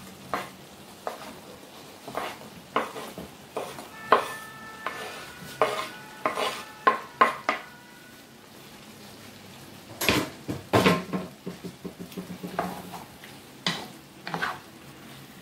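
Diced raw potatoes scraped off a wooden cutting board with a wooden spatula and dropped into a frying pan, then stirred into the sauce: a string of sharp knocks and taps, some ringing briefly, with a busier clatter about ten seconds in. A faint sizzle of the simmering tomato and pepper sauce runs underneath.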